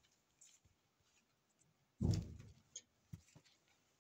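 Quiet handling of items in a school backpack as things are taken out, with a dull thump about halfway through and a few faint small clicks.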